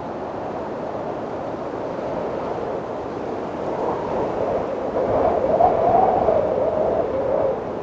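Wind blowing in a steady rush that swells into a stronger gust about five seconds in, with a faint whistling edge, then eases off near the end.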